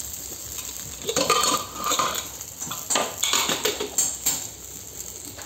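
Metal spatula knocking and scraping against a steel kadai while stirring cumin seeds frying in oil, a run of clatters from about a second in to about four seconds in.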